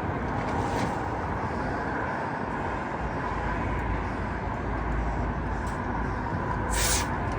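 Steady low background rumble, with one short hiss near the end, as a cleaned carburetor jet is blown or sprayed through.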